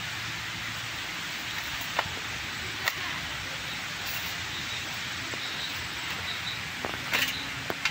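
Weeds being pulled by hand from garden soil: soft rustling and a few sharp snaps, over a steady hiss.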